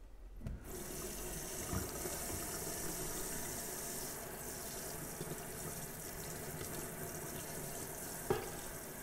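Tap water running onto a wire basket of dental instruments in a stainless steel sink, turned on about half a second in and then steady. Two short knocks as the basket is handled, the louder one near the end.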